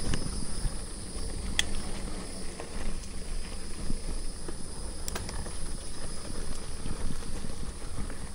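Mountain bike rolling slowly over a rough dirt singletrack, the tires and frame giving an uneven rumble with irregular knocks and rattles, and two sharp clicks about a second and a half in and about five seconds in.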